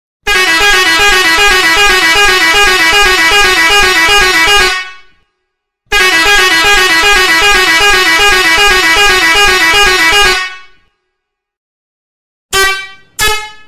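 Seger 86EH 12-volt melodic air horn playing its sequencing tune, a warbling run of quickly alternating notes. It sounds two long blasts of about four and a half seconds each, then two short blasts near the end.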